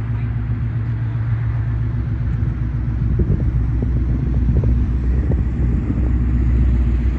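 Ford Mustang's 5.0 V8 with cat-deleted exhaust idling: a steady low rumble that grows slightly louder.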